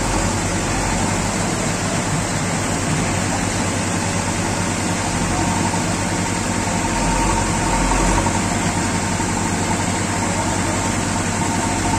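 JCB 3DX backhoe loader's diesel engine running steadily as it works the backhoe arm digging and dumping sand, getting slightly louder about eight seconds in.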